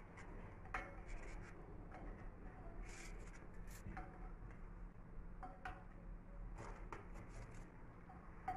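Scattered light clicks and taps of petit-beurre biscuits being handled and laid on pudding in a glass baking dish, with fingers and biscuits knocking against the glass, over a low steady hum.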